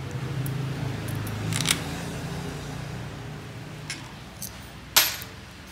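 Hand tools clicking against metal bolts and engine parts while bolts are tightened on a motorcycle engine. A few sharp clicks, the loudest about five seconds in, over a steady low hum that fades out about halfway through.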